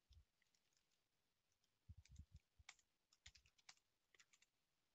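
Faint computer keyboard typing: a few scattered keystroke clicks, mostly about two to four seconds in, with near silence between them.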